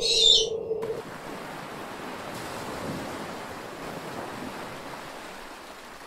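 A short, harsh, high-pitched sound in the first second, then a steady wash of sea and surf noise.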